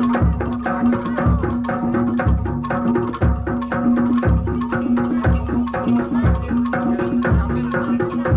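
Live Jaranan Dor ensemble music played on traditional East Javanese percussion. A deep drum beat falls about once a second under fast, dense clicking strokes, with ringing gong-like pitched tones held over the top.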